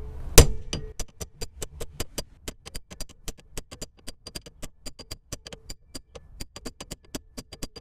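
Hammer striking a manual impact screwdriver on a grab-handle screw held with factory threadlocker. One hard strike comes just after the start, then a steady run of light taps, about five a second.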